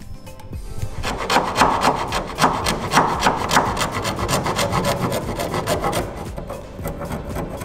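Round file rasping back and forth in a hole cut in wood, rounding out the cut edge: rapid repeated strokes starting about a second in, lighter near the end.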